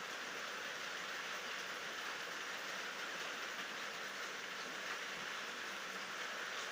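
Steady rain falling: an even, unbroken hiss, with no thunder.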